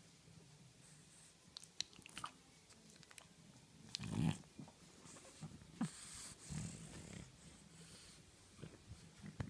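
French bulldog snuffling and snorting, with small clicking mouth sounds, and a louder breathy snort about four seconds in.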